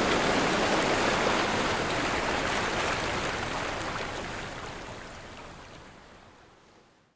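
Ocean surf, a steady rushing wash of water that gradually fades away to silence near the end.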